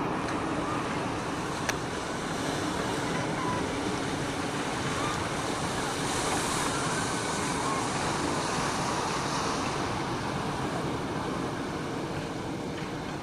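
Ocean surf breaking and washing up a sandy beach, a steady rush of waves that swells briefly about six seconds in.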